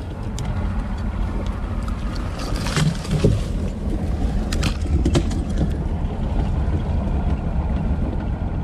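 Bass boat outboard motor running under throttle as the boat pushes out through a willow tree, with branches rustling and snapping against the boat several times in the middle.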